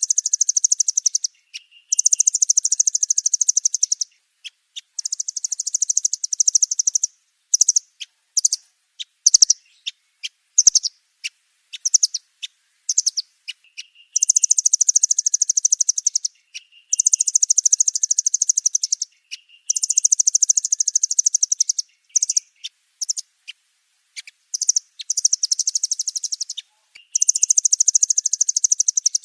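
Nuthatches calling, including the velvet-fronted nuthatch: long, very rapid high trills of two to three seconds each. Between the trills come sharp single chips and short, lower notes.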